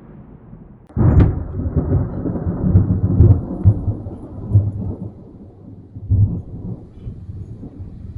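A thunder strike: a sudden sharp crack about a second in, then a low rolling rumble with several swells that slowly dies away.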